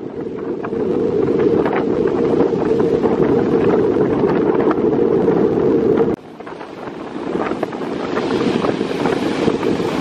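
Wind buffeting the microphone in a loud low rumble, over the wash and splash of rough sea surf breaking against shore rocks. The rumble drops away sharply about six seconds in, then builds again.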